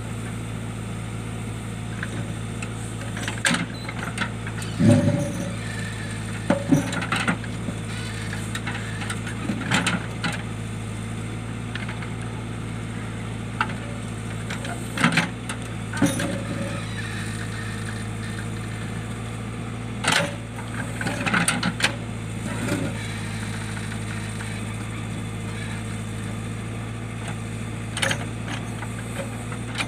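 JCB backhoe loader's diesel engine running steadily, with short clanks and knocks at uneven intervals from the working machine.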